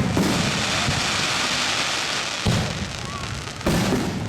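Aerial firework shells bursting, each burst followed by a dense crackling hiss of the stars. Two more sudden bursts come in the second half.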